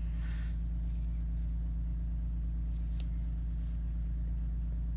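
Steady low background hum, with one faint click of the knife's metal parts being handled about three seconds in.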